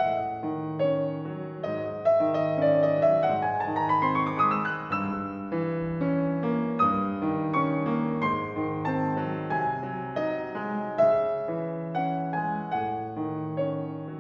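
Background piano music: a gentle solo piano piece with held chords and a quick rising run of notes a few seconds in.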